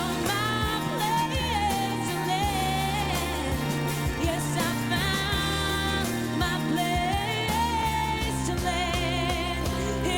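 Background music: a melody line with vibrato over sustained bass notes and chords.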